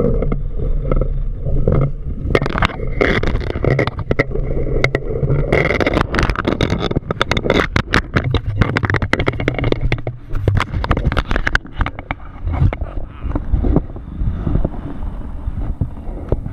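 Wind rushing over the microphone and the fabric of an Ozone Enzo 2 paraglider wing flapping during a full stall and its recovery. Through the middle the noise turns choppy with many sharp flaps and cracks as the stalled canopy buffets and the pilot swings under it, then smooths to a steadier rush near the end as the wing flies again.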